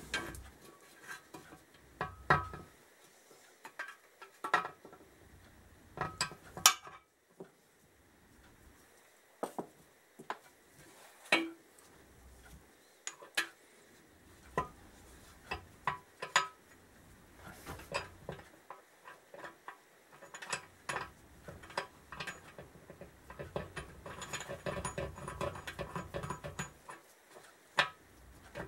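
Intermittent metal clinks and scrapes as a spindle is slid through a motorcycle swingarm's pivot tube and washers and a nut are fitted onto its ends, set up as a makeshift press to draw a new swingarm bearing in. A denser run of rattling clinks comes about 24 seconds in.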